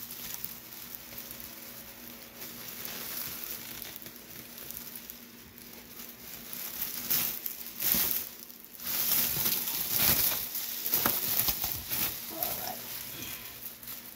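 Plastic oven bag crinkling and rustling as it is handled and gathered shut, in irregular surges that grow louder from about seven seconds in.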